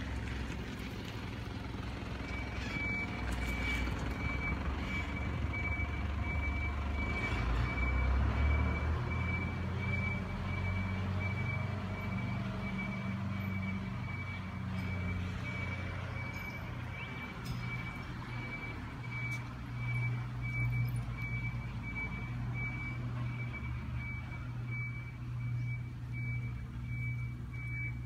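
A vehicle's reversing alarm beeping at one high pitch, the beeps evenly spaced and starting about two seconds in, over the low rumble of an engine.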